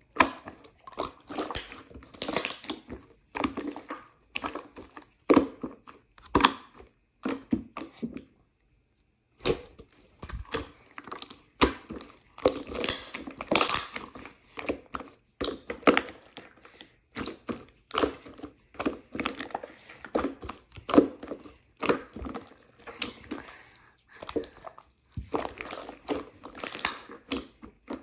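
Slime being squished, pressed and stretched by hand, giving irregular wet clicks and crackles in quick bunches, with a short pause about eight seconds in.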